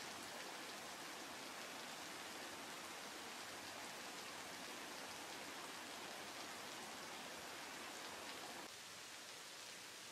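Steady rushing of waterfalls, an even hiss of falling water. About nine seconds in it drops to a quieter, thinner rush of water.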